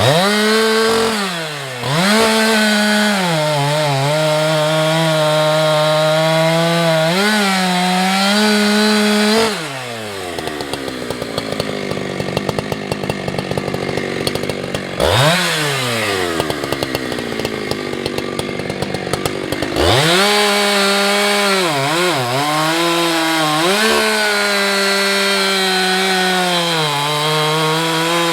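Husqvarna 365 two-stroke chainsaw cutting through a large log at full throttle, the engine pitch sagging and wavering as the chain bites. About ten seconds in the throttle is released and it drops to a ticking idle. After a few seconds it revs up sharply and goes back into the cut under load.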